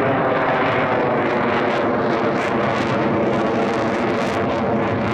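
Lockheed Martin F-22 Raptor's twin Pratt & Whitney F119 turbofan engines, a steady loud jet roar as the fighter flies overhead in a banking turn.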